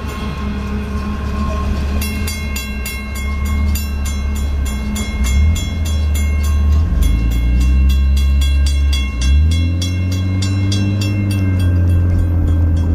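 Double-stack container freight train rumbling past, with the grade-crossing bell ringing about three strikes a second from about two seconds in. About halfway through, an engine revs up in two rising sweeps and then holds steady.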